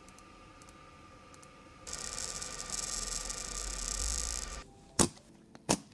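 Laser marking machine running, a high hiss with a low rumble under it for about three seconds, stopping abruptly, followed by two sharp clicks.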